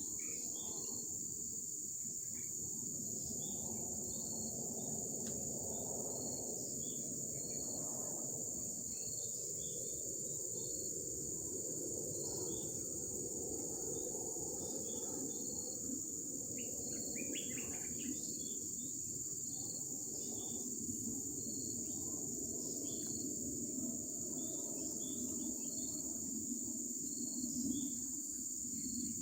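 A steady, high-pitched drone of insects, crickets or cicadas, over a low, even rush of flowing river water. A few short bird chirps come at the start and again about two-thirds of the way through.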